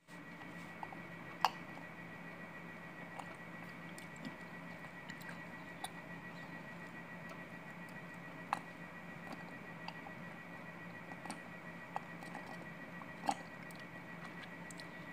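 Someone sipping and swallowing a warm drink from a ceramic mug, heard as a few faint soft clicks and gulps over a steady low room hum.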